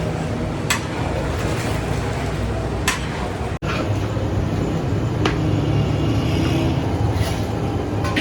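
A steady low machine hum with a few sharp knocks or clacks, about two seconds apart.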